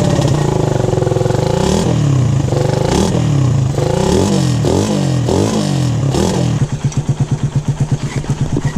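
Suzuki Raider 150 motorcycle engine revved in repeated blips through a newly fitted big-elbow exhaust, the pitch rising and falling about once a second. About two-thirds of the way in it drops to a steady, pulsing idle. The rider notes an exhaust leak ('singaw').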